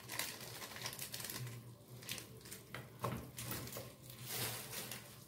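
Faint crinkling and a few light taps as a chicken stock cube is crumbled by hand into a pot of liquid, over a faint low hum.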